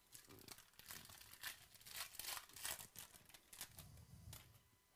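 Foil wrapper of a 2018 Prizm Racing trading-card pack crinkling and tearing as it is opened by hand: a faint run of quick crackles that dies away about four and a half seconds in.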